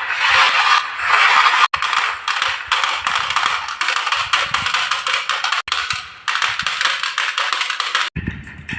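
Many marbles rolling and clattering down wooden marble-run tracks, a dense run of clicks and taps. It breaks off abruptly three times, and near the end it turns quieter and lower.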